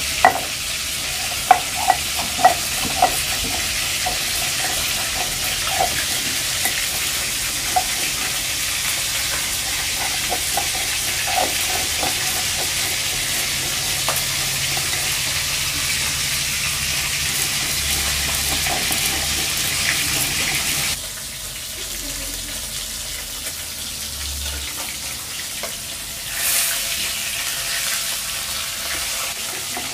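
A stone roller grinding mustard seeds into a wet paste on a flat stone grinding slab: a steady gritty scraping and rubbing, with a few sharp knocks near the start as the seeds are crushed. The scraping drops suddenly in level about two-thirds of the way through.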